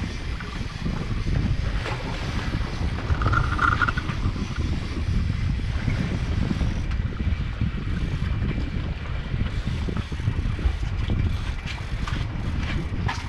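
Wind buffeting the microphone aboard a boat at sea, a heavy low rumble with water noise underneath. A brief faint tone sounds about three seconds in.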